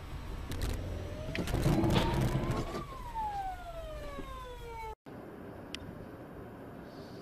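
A pitched wail that rises for about two seconds and then slides down for about two seconds, over a clatter of sharp impacts, loudest about two seconds in. The sound drops out briefly about five seconds in, and steady low road noise follows.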